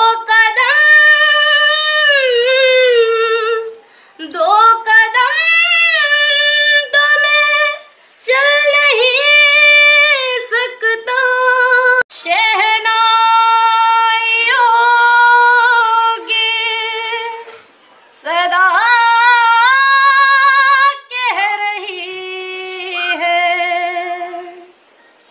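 A woman singing unaccompanied in a high, clear voice with vibrato. She sings about seven phrases of two to four seconds each, with short breaks for breath between them.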